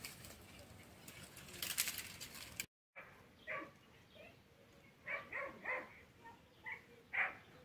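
Faint crackling clicks, then after a cut a string of short animal calls, about seven in all, several of them close together.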